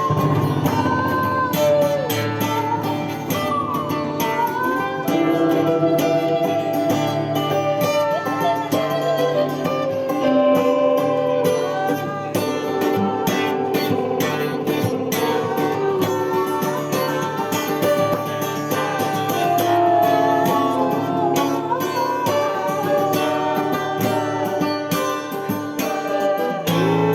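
Blues-rock band music led by guitar, with bending, gliding lead notes over a steady bass line.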